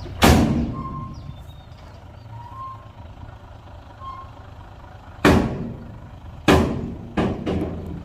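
Heavy earthmoving machinery at work: a diesel engine running low, with faint reversing beeps about every second and a half in the first half. Five loud, sharp bangs sound over it, one just after the start and four close together in the last three seconds.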